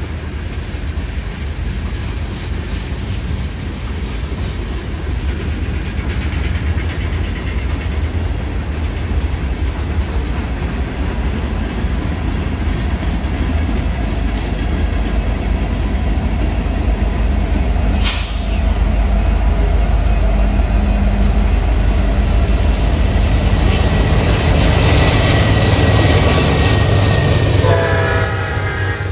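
Norfolk Southern freight trains passing close by: a steady deep rumble from the diesel locomotives and the rolling cars, with wheels clacking over the rails. There is one sharp metallic crack about two-thirds of the way in, and a train horn sounds near the end.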